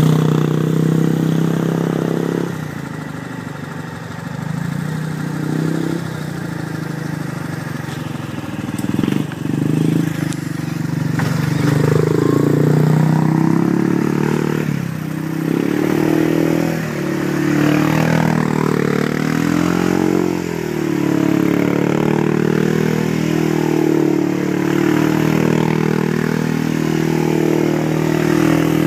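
2009 Yamaha Grizzly 350 IRS ATV's single-cylinder four-stroke engine through an HMF aftermarket exhaust, running steadily on the trail, then revving up and down over and over as the quad spins donuts in the mud. A few sharp knocks come about a third of the way through.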